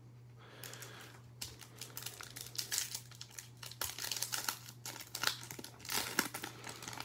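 Foil wrapper of a Topps Chrome trading-card pack crinkling and tearing as it is pulled open by hand. A dense run of crackles starts about a second in.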